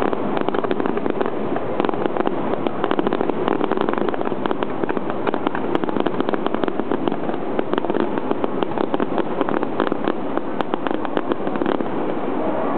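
Fireworks display: aerial shells bursting into a dense, continuous crackle of many small pops.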